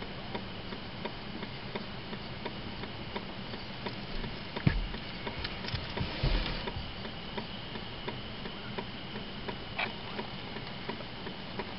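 Steady light ticking inside a stopped car, like the relay of its turn-signal or hazard lights, with two dull thumps about five and six seconds in.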